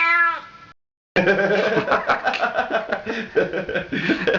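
A cat's drawn-out meow ends within the first second. After a short silent gap, rapid, choppy chuckling laughter runs on.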